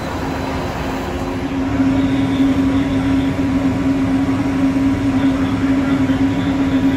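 Disneyland Mark VII monorail running, a steady low electric hum that grows louder about two seconds in.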